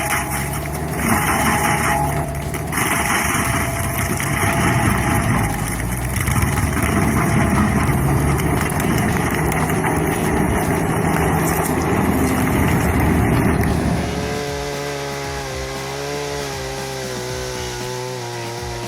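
Heavy machine running under load with a dense grinding noise over a low steady hum. About fourteen seconds in, it cuts to a chainsaw engine running with a wavering pitch.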